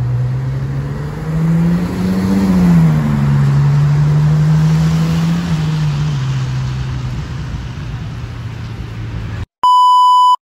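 Ferrari FF's V12 engine pulling away, its pitch rising as it revs about two seconds in, then settling and fading as the car draws off. Near the end the engine sound cuts off and a short, steady electronic beep sounds.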